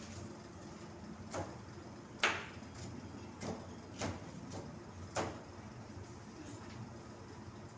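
Kitchen knife striking a plastic cutting board in slow, irregular cuts: a handful of sharp knocks about a second apart, the loudest a little over two seconds in.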